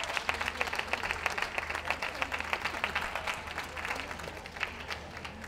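Audience applause: many scattered hand claps that thin out and fade toward the end.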